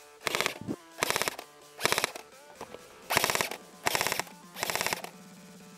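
G&P M7A1 airsoft electric rifle firing six short full-auto bursts, each under half a second, about a second apart.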